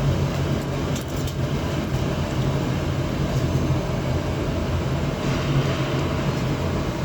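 Circuit-board recycling plant machinery running steadily: a constant low hum under a broad mechanical noise.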